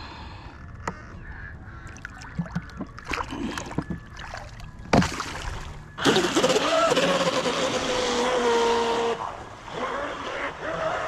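Pro Boat RC speedboat running on a 6S battery, taking off across the water: about six seconds in its electric motor's whine comes in loud with the rush of water and spray, holds for about three seconds and fades, then rises again more softly near the end. Before it, small clicks and a sharp knock.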